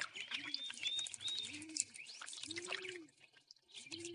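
Small birds chirping with quick high twitters, while a dove coos over and over, a low rising-and-falling coo about once a second.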